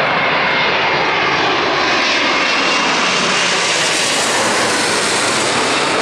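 Boeing 777-236ER jet airliner passing low overhead on final approach with its landing gear down: loud, steady jet engine noise that grows brighter and hissier as the plane comes directly overhead about four seconds in.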